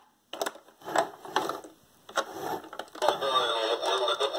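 FunRise toy fire truck's electronic siren starting about three seconds in, a fast warbling tone muffled by tape over its speaker. Before it, a few clicks and knocks of hands handling the plastic truck and pressing its buttons.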